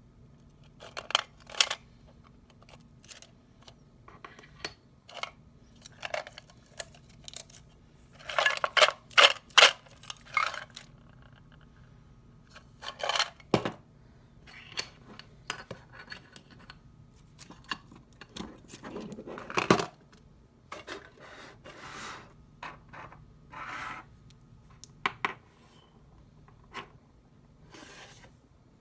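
Hands handling a metal tin of Sakuma Drops hard candies and its packaging: scattered clicks, clinks and scrapes, with a few louder clusters of rattling knocks about a third of the way in, near the middle and around two-thirds through.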